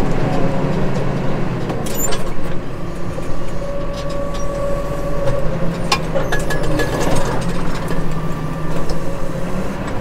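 Case Maxxum 150 tractor engine running steadily under ploughing, heard from inside the cab, with a few sharp clicks and knocks about two, six and seven seconds in.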